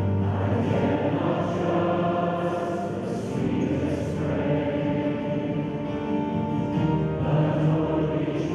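A youth choir of school pupils singing together, with instrumental accompaniment.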